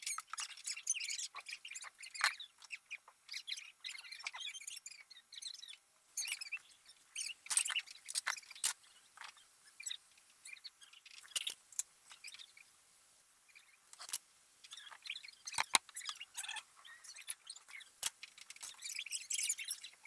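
Dishes, glassware and cutlery clinking, clattering and squeaking as they are washed by hand in a kitchen sink, in irregular bursts with a short lull past the middle.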